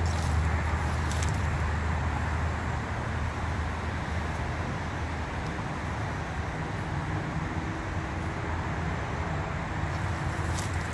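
Steady rush-hour road traffic noise: a continuous low rumble and hiss. A few faint high clicks come near the start and again near the end.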